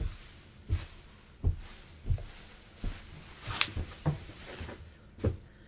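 Footsteps climbing stairs covered in bubble wrap: a dull thud roughly every three quarters of a second, with one sharper crack about three and a half seconds in.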